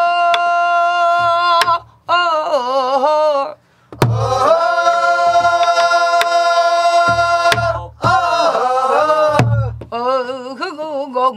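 Men and women singing a Namdo folk song together: long held notes on a vowel, then wavering, ornamented phrases. Buk barrel-drum strokes and stick clicks mark the rhythm.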